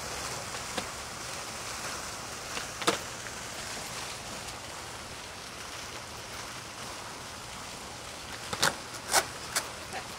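Skateboard on a concrete ledge: a steady hiss with sharp clacks of the board and trucks striking the concrete, one loud clack about three seconds in and a quick run of four more near the end.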